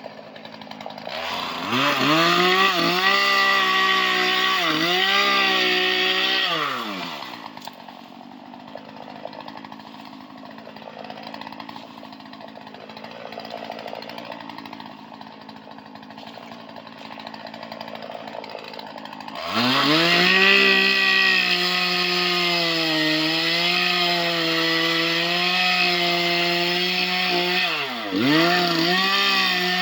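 Two-stroke chainsaw revved up and held at high speed with a wavering pitch, then dropping back to a much quieter idle for about twelve seconds. It is revved up again and held high for the rest, with a brief dip in revs near the end.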